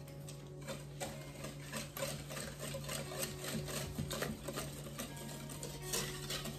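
Wire balloon whisk beating eggs and brown sugar in a mixing bowl: quick, even strokes, the wires clicking and swishing against the bowl in a steady rhythm.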